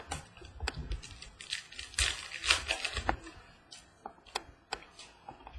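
Trading cards being handled on a tabletop: a string of sharp clicks and taps as cards are picked up, flicked and set down, with a denser stretch of rustling about two seconds in.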